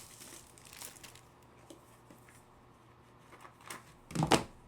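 Faint rustling of trading cards and packaging being handled, with a brief louder scrape or clatter about four seconds in.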